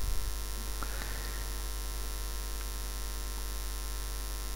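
Steady electrical hum and buzz with a faint hiss, unchanging throughout.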